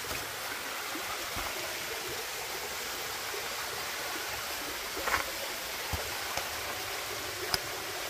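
Steady rushing of a small mountain waterfall and the creek below it, with a few faint knocks in the second half.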